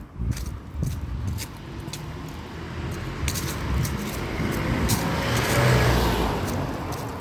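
A car passes by, building to its loudest about six seconds in and then easing off, over footsteps on the ground.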